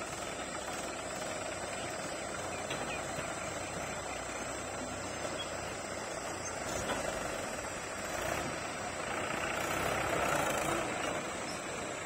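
Diesel engine of a Mahindra tractor running as it pulls a trailer loaded with soil, growing louder a little past the middle as it works harder.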